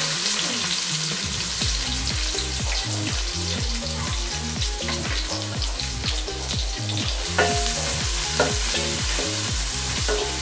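Chopped onions and green chillies sizzling steadily as they fry in hot oil in an aluminium pot. From about seven seconds in, a metal spoon stirs them, with a few clicks and scrapes against the pot.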